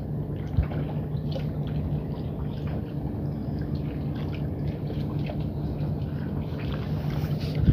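Water lapping and dripping against concrete pier pilings, small irregular splashes, over a steady low hum.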